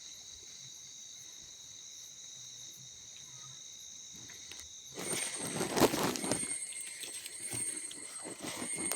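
Cicadas droning in a steady high-pitched buzz. About five seconds in the sound switches to another, higher insect drone, with loud irregular rustling and crunching over it, like steps and handling in vegetation.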